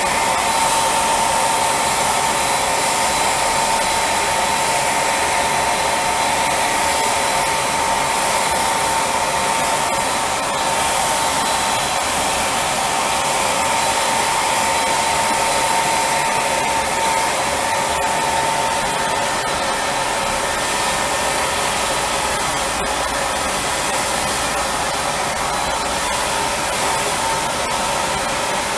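Spray tanning equipment running without a break: the turbine that feeds a hose-fed spray tan gun and a handheld drying blower. It is a constant rush of air with a steady whine over it.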